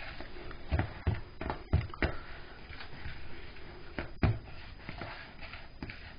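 Spoon stirring thick homemade chocolate icing in a plastic bowl, with irregular knocks and scrapes against the bowl, several in the first two seconds and a sharp one about four seconds in.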